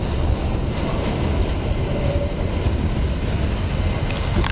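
New York City subway D train running along the track, a steady low rumble with a sharp click shortly before the end.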